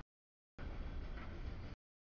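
Freight train cars rolling past: a steady rumble of wheels on rail, heaviest in the bass. The sound cuts out to dead silence for the first half second and again near the end, like dropouts in the feed.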